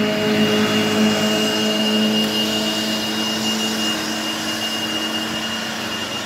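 An engine running steadily, a drone with several steady tones and a high steady whine; two of the tones fade out a little past halfway, and the drone eases slightly in loudness.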